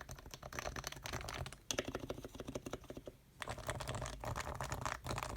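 Leopold FC660C keyboard with electrostatic capacitive (Topre) switches being typed on quickly: a dense stream of soft keystrokes, with a brief pause a little past three seconds in. Its switch sliders and springs are lubed with Krytox 105, its stabilizers with Krytox 205, and the case is filled with sound-dampening foam.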